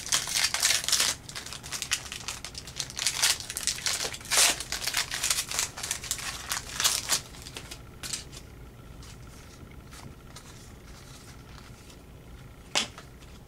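Foil wrapper of a trading card pack crinkling as it is torn open by hand, dense and crackly for about the first seven seconds. After that it goes quieter, with light handling of the cards and one sharp tap near the end.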